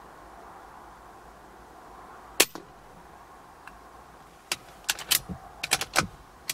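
A .22 BSA Super10 pre-charged pneumatic air rifle firing once, a single sharp crack about two seconds in. About two seconds later comes a run of several quieter sharp clicks and knocks.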